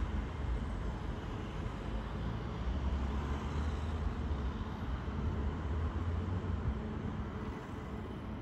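Steady low rumble of city traffic, with a distant electric commuter train coming slowly along the tracks.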